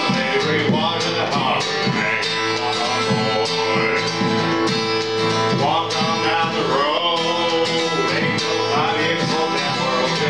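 Acoustic guitar strummed in a country-bluegrass style with a steady beat from hand percussion, and a voice singing the melody over it.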